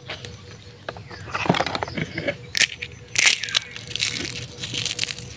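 Eggshells being crushed by hand and crumbled into potting soil: an irregular run of small crackles and crunches, loudest about three seconds in.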